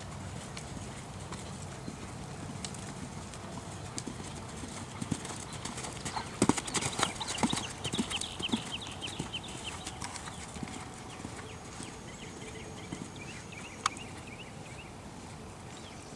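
Hoofbeats of a ridden horse on arena sand, loudest and closest for a few seconds in the middle, with one sharp click near the end.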